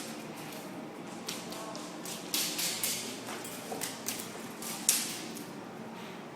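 Scattered airsoft gun shots, short sharp pops in a large echoing room, with the loudest crack about five seconds in, over a steady low hum.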